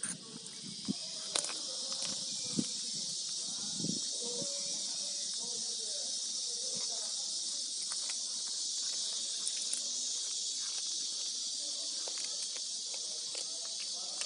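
A steady high hiss that builds over the first couple of seconds and holds, with a few small clicks and taps in the first seconds.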